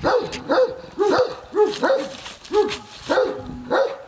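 Large shepherd dog barking repeatedly, about two barks a second.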